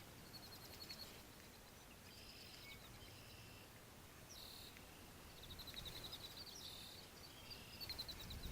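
Faint songbirds chirping and trilling, one giving a quick rapid trill a little past the middle, over quiet outdoor background hiss.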